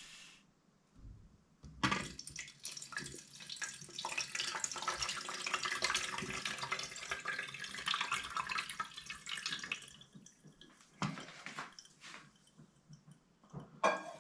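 Water poured from a metal jug into the plastic top reservoir of a glass filter jug, splashing steadily for about eight seconds and then stopping, followed by a few scattered drips.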